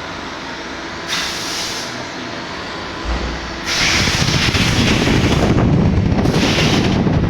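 CNC machine running, a steady mechanical noise broken by short bursts of hiss. The noise grows louder and rougher about four seconds in.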